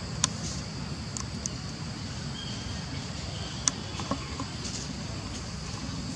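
Outdoor ambience: a steady high insect drone over a low rumble, with a few sharp clicks scattered through it.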